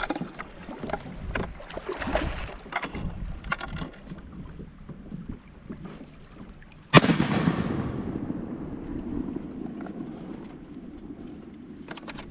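Kayak paddle strokes, with short splashes and drips of water off the blades. About seven seconds in there is a sudden loud bang, followed by a low rushing noise that fades away over several seconds.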